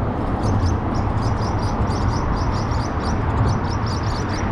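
Steady rumble of highway traffic, with a fast run of short, high, thin chirping ticks through most of it.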